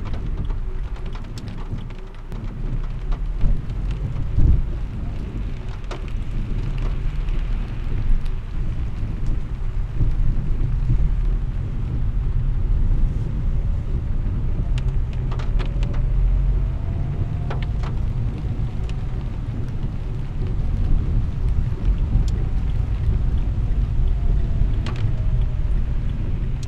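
Car driving on rain-soaked city streets in heavy rain, heard from inside the cabin. A steady low rumble of tyres and engine runs under the hiss and patter of rain on the windshield, with scattered sharp taps and a faint whine that rises and falls through the middle.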